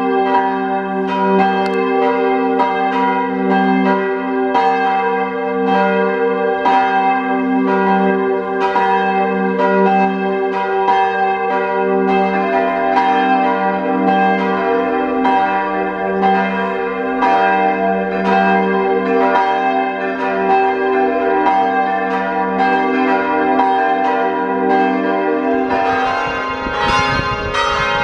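A peal of several church bells ringing together, strikes overlapping in a continuous, uneven rhythm with their tones hanging on. A low rumble joins about two seconds before the end.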